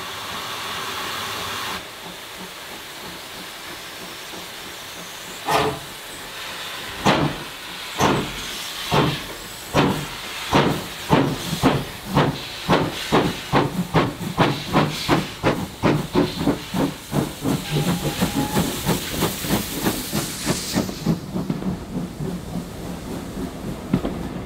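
Steam locomotive starting away: steam hissing, then exhaust chuffs beginning about five seconds in, slow at first and speeding up steadily to a quick beat. A loud hiss of steam runs under the chuffs and cuts off near the end.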